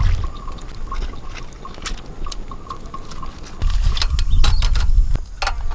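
Water splashing and trickling, with scattered small knocks and clicks, over a low rumble that grows louder a little over halfway through.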